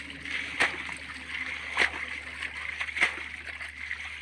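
Water splashing in a shallow muddy ditch, four sharp splashes a little over a second apart over a steady high hiss.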